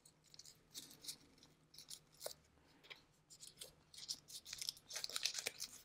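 A small square of paper being unwrapped from around a stone: faint, irregular crinkles and rustles that get busier toward the end.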